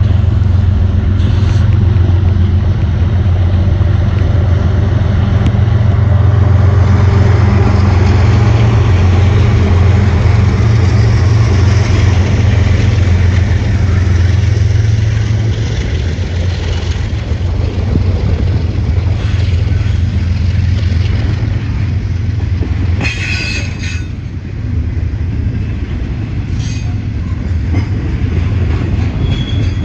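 Diesel freight locomotives pass close by with a loud, steady low engine drone, then a double-stack intermodal train's well cars roll past with a continuous rumble of steel wheels on rail. A brief high screech from the wheels stands out about two-thirds of the way through.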